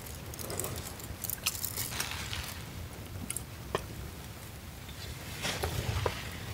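Low rumble of wind on the microphone, with scattered small clicks and rustles of gear being handled, a cluster of them about five to six seconds in.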